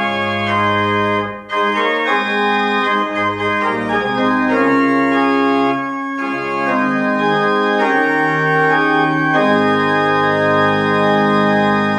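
Organ playing slow, sustained chords, the notes held steady rather than dying away, with a short break about a second and a half in.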